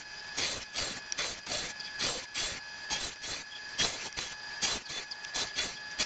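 Band saw running with a steady whine while ripping thin wooden strips along its fence, the cut rasping in an even rhythm of about three strokes a second.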